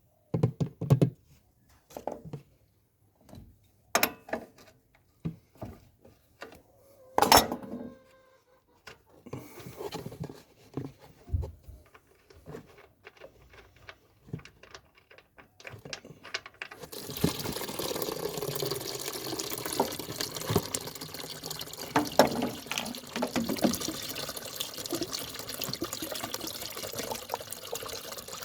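Scattered knocks and clicks of handling, then, about halfway through, liquid begins pouring steadily into a container.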